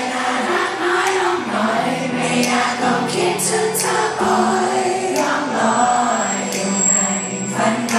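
Thai pop boy band singing into microphones over a pop backing track, several voices singing together, with the deep bass dropped out.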